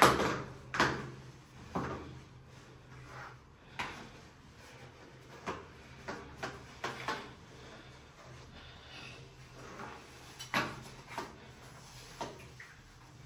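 A series of irregular sharp knocks and clicks, like small hard objects being handled and set down; the loudest comes right at the start, with a cluster in the first two seconds and more scattered after.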